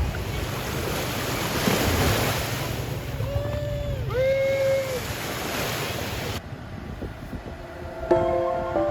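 Wind and sea waves rushing on open water, with wind buffeting the microphone and two brief calls in the middle. Near the end the sound cuts and music begins.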